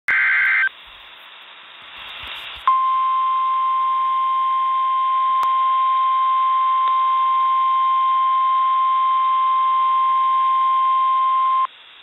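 NOAA Weather Radio alert played through a streaming app: it opens with a short harsh burst of digital SAME header tones, then about two seconds of radio hiss. Then comes the steady single-pitch 1050 Hz warning alarm tone, held for about nine seconds, which signals that a warning, here a severe thunderstorm warning, is about to be broadcast.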